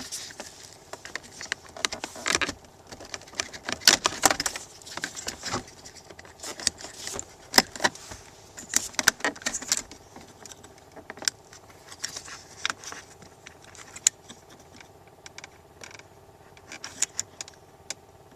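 Irregular plastic clicks, rattles and rustling as hands unplug wiring connectors from a car's center console switch plate, over a faint steady hum.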